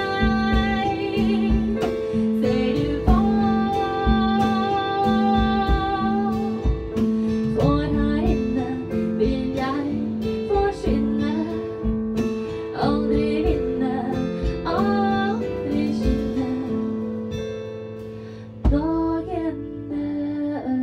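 A small band playing live: a woman singing over a Kurzweil keyboard, electric guitar and drum kit, with a low note pulsing about once a second. The music dips in loudness shortly before a sharp drum hit near the end.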